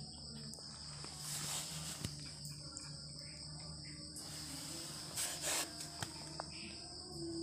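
Steady high-pitched chirring of night insects, crickets by the sound of it, with a low hum beneath and a few brief rustling noises, about a second and a half in and again after five seconds.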